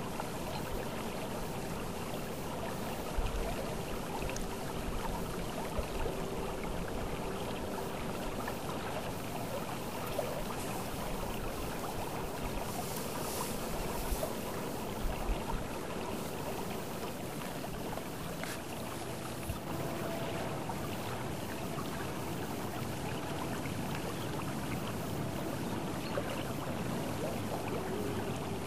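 Steady rushing and rippling of the river Ebro's water along a pebble bank, with a few brief low bumps.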